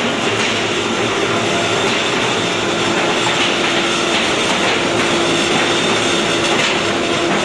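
Roll forming machine for concealed-fastener Big V roofing sheet running steadily, its forming rollers turning with a constant rattle and a steady hum.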